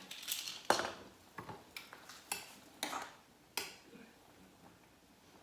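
Light clicks and clinks of kitchenware being handled, about six sharp taps spaced irregularly, dying away about two thirds of the way through.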